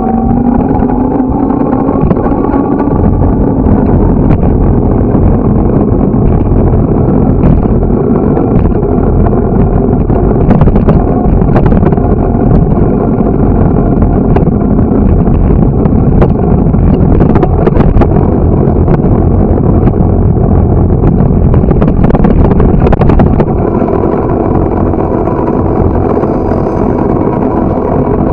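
Heavy wind rumble on the microphone of a camera riding on a moving bicycle, easing slightly near the end. An engine note rises in pitch over the first few seconds, and a few sharp clicks and knocks come through in the middle.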